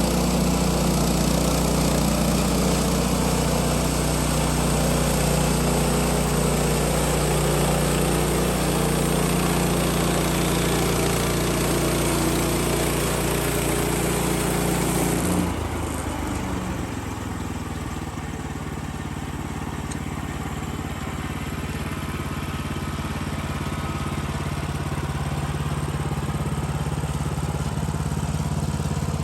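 Sawmill's gasoline engine running steadily under load with a hissing high end. About halfway through the sound changes abruptly: the hiss drops away and the engine note shifts, and it runs on steadily after that.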